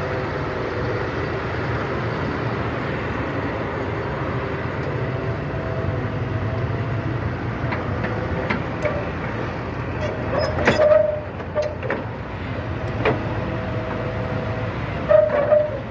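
Hitachi EX200-1 excavator's diesel engine running steadily. About two-thirds of the way in, and again near the end, come brief sharp metallic clanks with a short squeal.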